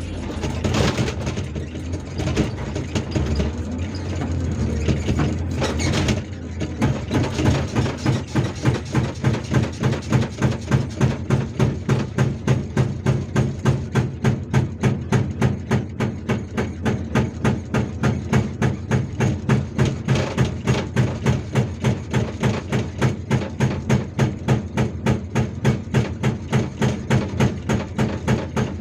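Hydraulic breaker hammer on a Hyundai R480LC-9S excavator pounding rock: a fast, even hammering of about four to five blows a second over the excavator's running diesel engine, starting about six seconds in as the intro music ends.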